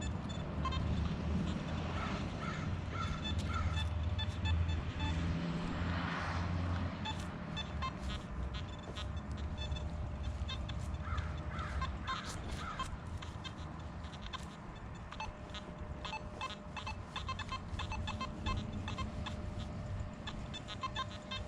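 Nokta Simplex metal detector chattering and giving short broken tones from electromagnetic interference, which is still bad with the sensitivity at 3 bars. A low rumble runs underneath.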